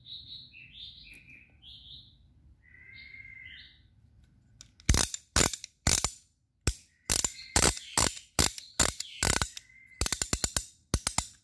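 A few bird chirps, then a string of loud, sharp metal clicks and clacks from steel wrenches being handled, ending in a quick run of clicks.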